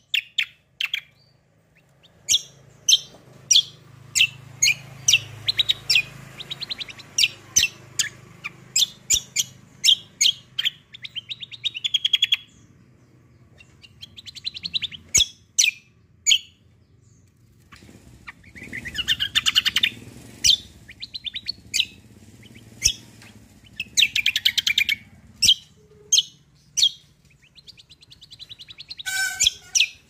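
Caged kacial kombo (cucak kombo) songbird singing a long run of sharp, high, clipped notes, broken by several fast rattling trills.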